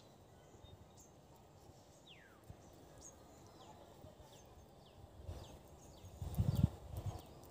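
Low grunting and growling bursts from dogs at play, loudest a little over six seconds in, over a series of short falling bird chirps in the background.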